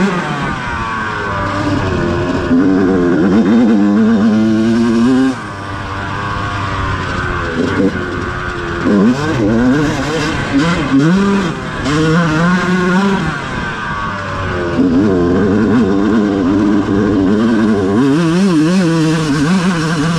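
Dirt bike engine revving up and down hard as the bike is ridden along a trail, its pitch climbing and dropping over and over with the throttle and gear changes. There is a short letup in power about five seconds in.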